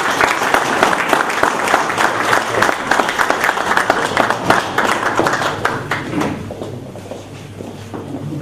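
Audience applauding, dense at first and thinning out over the last two seconds or so.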